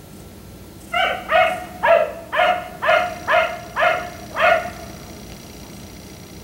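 A black Labrador retriever barking in a run of eight barks, about two a second, then falling silent.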